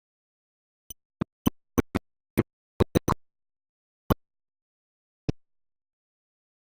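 About eleven short, sharp clicks or knocks at irregular intervals, coming thick and fast in the first half and then petering out, with dead silence between them.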